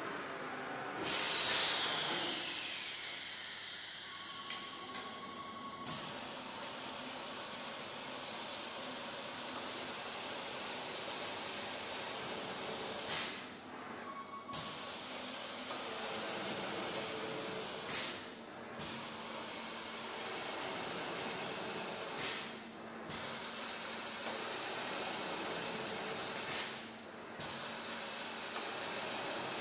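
A four-shaft tape slitting machine's circular blade is cutting into a rotating log of BOPP adhesive tape, making a steady high hiss. It opens with a sharp burst and a falling whine about a second in. After that the hiss runs in stretches of three to four seconds, each ending in a brief swell and a short pause as the blade moves to the next cut.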